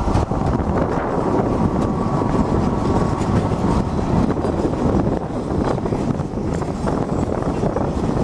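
Freight train of Eas open wagons rolling through a station, a steady rumble of wheels on rails, with a faint thin tone over it in the first few seconds.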